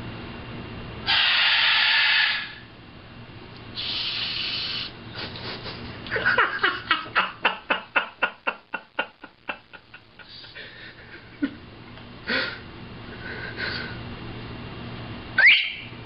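Macaws calling: two harsh hissing squawks in the first few seconds, then a quick run of short clipped notes that speeds up and fades away, a few short chirps, and a sharp rising whistle near the end.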